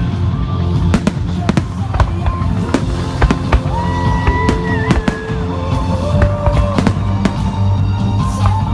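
Fireworks display going off in quick, irregular bangs and cracks, heard over loud music with a steady bass.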